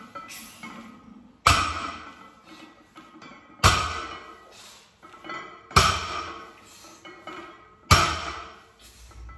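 Loaded barbell plates clanking down on the gym floor on each rep of bent-over barbell rows: four sharp metallic impacts about two seconds apart, each ringing briefly.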